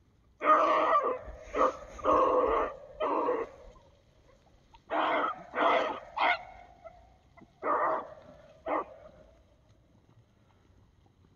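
A hunting dog barking in short loud bursts, about nine barks in three groups, one drawn out briefly at the end.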